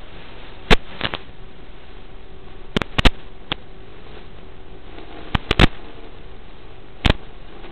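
Steady static hiss from an analog FPV video link's audio channel, broken by about eight sharp pops scattered at irregular times.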